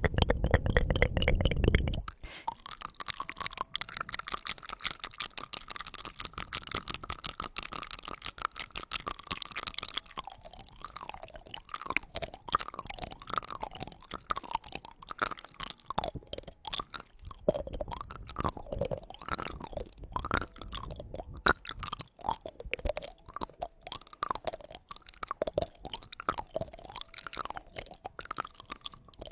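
Close-miked wet mouth sounds: rapid tongue clicks and smacks, with short squeaky glides in pitch among them from about a third of the way in. For about the first two seconds a loud low rumble lies under the clicks.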